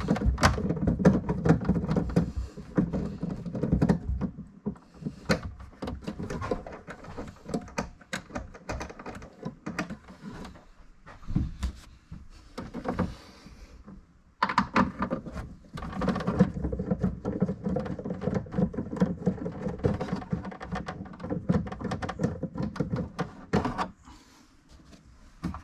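Hand ratchet clicking in quick runs as the 8 mm bolts holding a car tail light are undone, with small knocks and handling noise; the runs of clicking stop for several seconds in the middle and start again.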